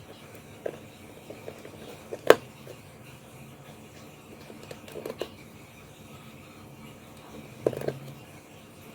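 Tiny plastic Petit Block bricks clicking as they are handled and pressed together, a few sharp separate clicks with the loudest a little over two seconds in.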